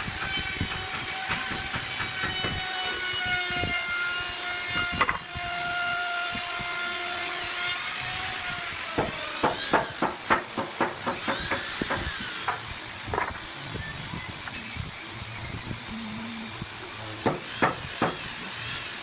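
A woodworking power tool's motor running with a steady whine for about the first eight seconds. Then comes a run of sharp knocks on wood, about three a second, with a few more near the end.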